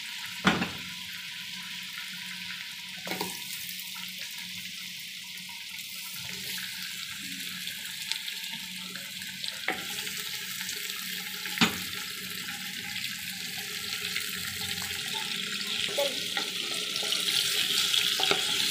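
Mutton pieces sizzling and crackling in hot ghee in a clay handi, the frying growing louder toward the end as more meat goes in. A few sharp knocks, the loudest about half a second in.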